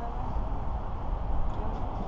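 Steady low wind rumble on a helmet-mounted camera's microphone while riding a BMX bike slowly over asphalt, with the even hiss of the tyres rolling and a few faint clicks near the end.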